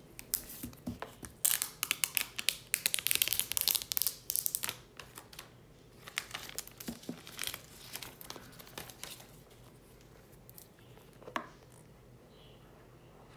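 Plastic wrap being torn and crinkled off a smartphone box: a dense crackling run for about three seconds, then a lighter second run. It fades to handling noise with a single tap near the end.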